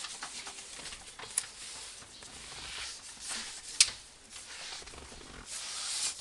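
A sponge pad scrubbing a leather car seat with cleaner, a steady rubbing, with a sharp click a little past halfway.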